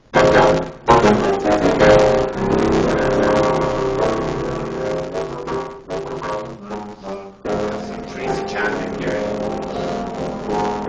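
Live music with piano, sustained notes and chords, recorded on a phone with poor sound quality.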